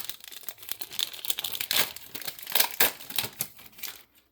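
Plastic Pokémon booster pack wrapper being crinkled and torn open, a dense run of sharp crackles that stops near the end.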